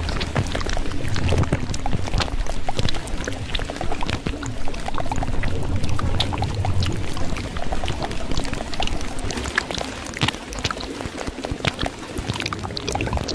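Continuous water sounds, a steady pouring and splashing noise full of small crackling drips, over a low rumble that eases off about halfway through.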